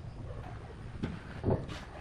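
Two dull knocks about half a second apart, the second one louder, over a low steady hum.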